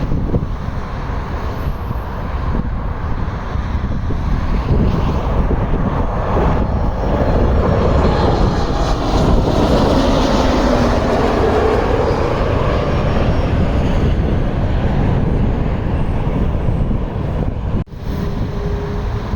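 Jet airliner passing overhead on landing approach. Its engine noise swells to a peak about ten seconds in, with a tone that falls in pitch as it goes by. The sound drops out for a moment near the end.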